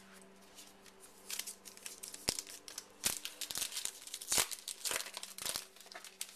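Trading-card pack wrapper crinkling and tearing as it is opened, an irregular string of crackles starting about a second in.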